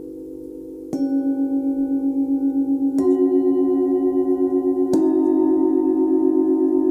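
Forged Tibetan singing bowls from a seven-note chakra set struck one after another, three strikes about two seconds apart, each adding a new pitch to the overlapping ringing. The tone wavers in a steady, slow pulse as it rings.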